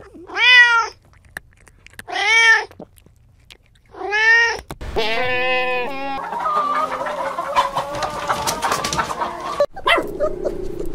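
A cat meows three times, each call rising and then falling in pitch, about two seconds apart. From about five seconds in, several seconds of many overlapping animal calls follow.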